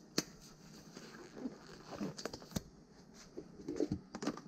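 Several sharp clicks and light rustling from hands handling small metal parts and a grease container, as bicycle headset bearings are about to be greased.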